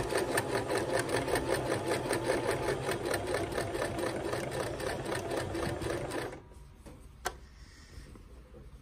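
Electric domestic sewing machine stitching a seam through cotton fabric at a fast, even rhythm, stopping abruptly about six seconds in. One sharp click follows about a second later.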